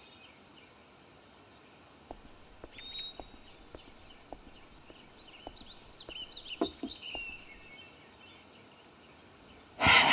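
Small birds chirping now and then over quiet outdoor ambience, with a few faint clicks. A short loud burst of noise comes near the end.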